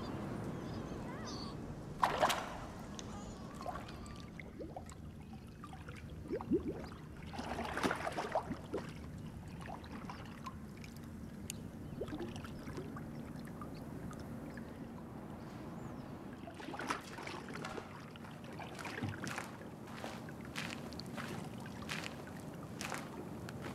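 Quiet location ambience: a steady low rumble, with a few short scuffs and crunches about two seconds in, in the middle, and several more near the end.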